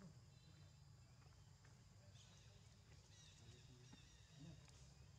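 Near silence: faint outdoor background with a steady low hum and a few faint high chirps.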